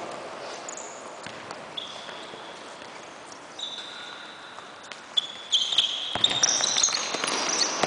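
Futsal play on an indoor court: shoes squeaking on the floor and the ball being kicked and bouncing. It gets busier and louder about five and a half seconds in.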